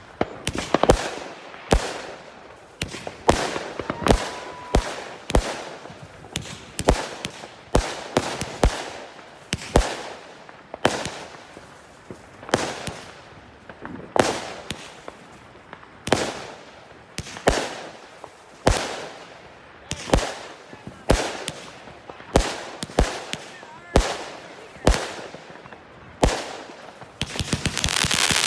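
A 200-shot firework cake firing, a regular string of sharp bangs about one and a half a second, many with a short crackling tail. Near the end it breaks into a dense, continuous crackle.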